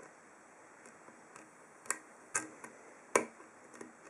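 Small, irregular metal clicks of lock picks and tension tool working the pins of an ASSA Ruko 2 padlock's pin-tumbler core. There are about six ticks, the sharpest about three seconds in, as the picker works to regain a false set.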